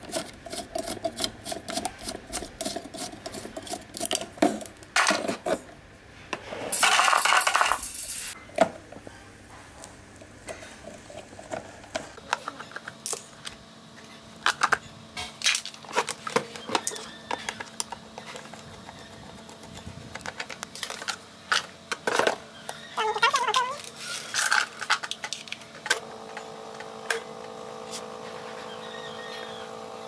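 Clicks, clinks and knocks of small plastic and metal parts being handled as an old table fan is taken apart, with a louder rasping noise lasting about a second a quarter of the way in. Near the end a steady hum starts as the bare motor runs without its blade, spinning smoothly, which the owner takes as a sign that the broken blade caused the fan's noise.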